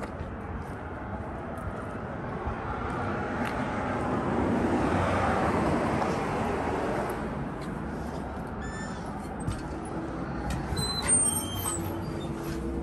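Traffic noise from a passing vehicle, swelling to its loudest about halfway through and fading away, with a few sharp clicks and clinks near the end.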